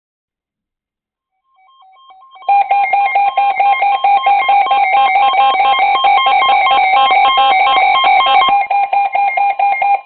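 Emergency alert tone: a loud, rapidly pulsing electronic tone that starts about two seconds in, after a second of faint broken beeps, and cuts off at the end.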